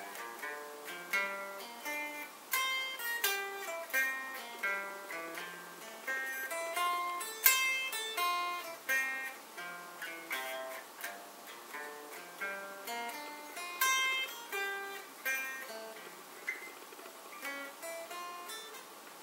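Electric guitar playing a slow arpeggio exercise: single picked notes one after another, climbing and falling in pitch, each ringing and fading before the next.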